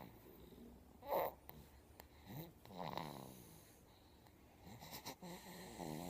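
A baby snoring in its sleep: drawn-out, wavering snores, with a brief louder noise about a second in.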